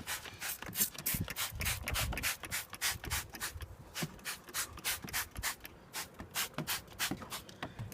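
Hand trigger spray bottle of engine degreaser pumped rapidly: a fast run of short hissing sprays, about three or four a second.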